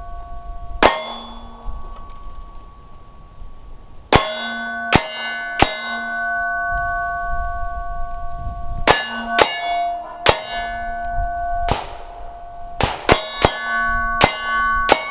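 Pistol firing about a dozen shots at an uneven pace at steel targets. Each hit sets the steel plates ringing with a clear, lingering clang between shots.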